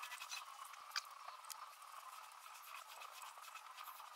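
Small gloss foam roller rolling wet two-pack paint over a car panel: a faint, sticky crackle of many tiny pops, with one sharper click about a second in.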